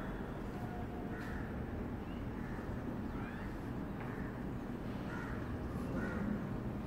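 Steady low background rumble, with several short, faint higher-pitched calls or squeaks scattered through it.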